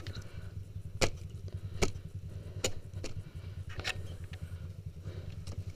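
Kawasaki KLX 150 G trail bike's single-cylinder four-stroke engine running steadily, with sharp knocks roughly once a second as the bike rolls over the rough dirt track.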